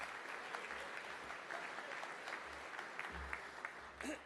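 A roomful of people applauding steadily, many overlapping claps. The applause eases near the end.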